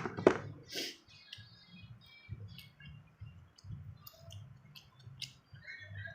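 Close-miked mouth sounds of chewing crunchy raw produce such as young cucumber and unripe mango: a sharp crunch right at the start and another about a quarter-second in, then scattered wet clicks and smacks.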